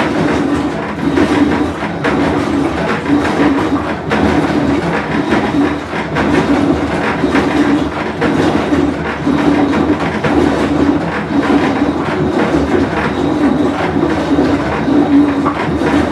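Whirlpool Cabrio top-load washer running with a loud rumbling drone that swells and fades every second or so, the sign of a worn tub bearing.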